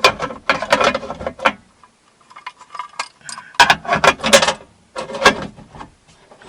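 Clattering clinks and knocks of metal cookware being handled, in irregular clusters with short pauses.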